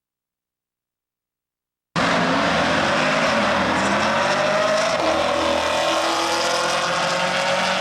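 Silence, then about two seconds in a race car's engine cuts in loud at full throttle, its pitch rising as it accelerates.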